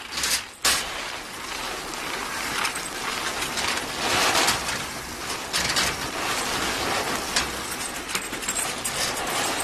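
Crunching as of feet and wheels in packed snow, made as a foley effect by hands squeezing a cloth bundle. A few sharp clicks come in the first second, then an uneven crunching noise runs on, loudest midway.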